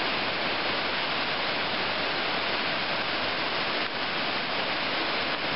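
Waterfall cascading over rock ledges into a creek pool, a steady, unbroken rush of water.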